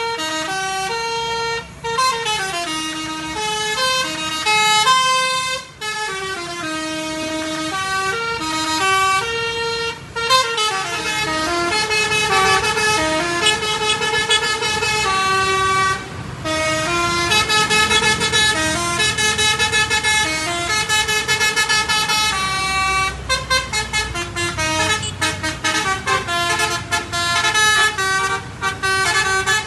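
Indonesian bus 'telolet' musical horns (basuri type) playing tunes, the notes stepping up and down in pitch. From about two-thirds of the way in, the horn notes turn into rapid short toots, several a second.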